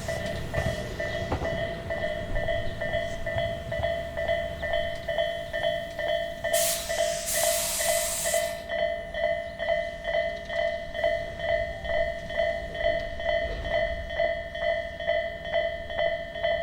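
Japanese level-crossing alarm bell ringing its steady electronic "kan-kan" about twice a second, over the low rumble of a train. About six seconds in, a loud burst of hissing air lasts about two seconds.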